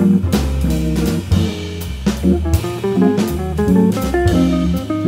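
Jazz organ trio playing: a jazz guitar takes a single-note melodic line over Hammond organ bass notes and chords, with a drum kit and cymbals keeping time.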